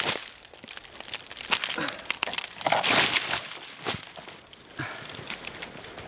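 Dry fallen leaves crunching and crackling underfoot as a person walks over leaf-strewn rocky ground and settles down to sit, in uneven steps. The loudest crunching comes about three seconds in.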